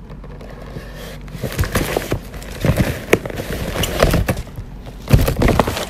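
A gift bag and the packaging inside it rustling and crinkling as a hand rummages through it, with irregular handling knocks. It starts about a second and a half in, and the sharpest knock comes about five seconds in.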